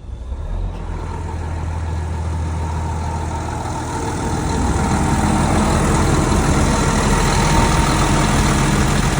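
Material handler's diesel engine running, no longer stuck in its no-crank condition now that the bad starter has been replaced. It picks up speed and gets louder about four and a half seconds in.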